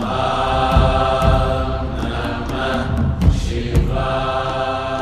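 Devotional chanting over music, held notes with a low drum-like beat recurring about once a second.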